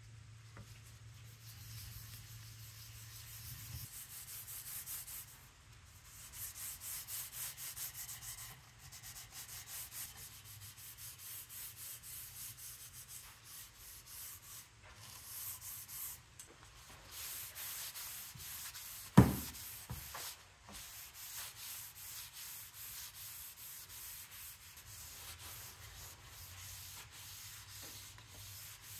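Hand rubbing on wood in quick back-and-forth strokes, a few a second with short pauses, the scratchy sound of hand sanding or rubbing down a surface. A single sharp knock about nineteen seconds in.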